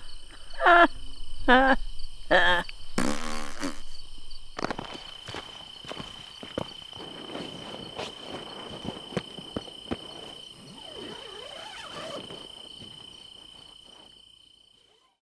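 Night insects trilling on one steady high note, under rustling and light clicks as someone crawls into a nylon dome tent, all fading out near the end. A few short voice sounds come first, in the opening seconds.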